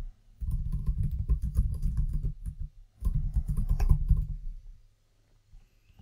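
Typing on a computer keyboard: two quick runs of keystrokes, each a couple of seconds long with a short pause between, stopping about a second and a half before the end.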